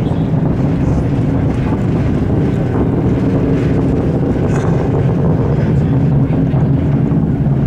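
Distant rumble of a SpaceX Falcon Heavy's 27 Merlin engines during ascent: a steady, loud, low noise with no pauses.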